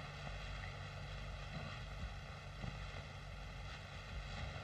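Steady hiss and hum of a 1930s film soundtrack, with a few faint soft knocks.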